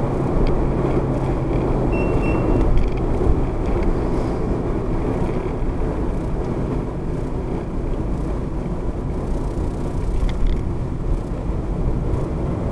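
Steady road and engine noise of a moving car, heard inside the cabin through a windscreen-mounted dash cam, with most of the sound low and even throughout.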